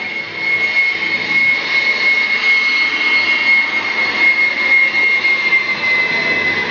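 Jet engine of a jet-powered school bus running at high power: a loud, steady rushing noise with a strong high whine that sinks slightly in pitch near the end.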